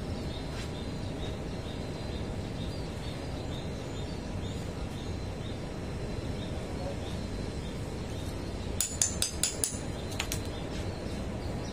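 About six sharp metallic clinks in quick succession near the end, as the steel socket and the roll clamp rotator's metal housing are handled, over steady low background noise with a faint high chirp repeating about three times a second.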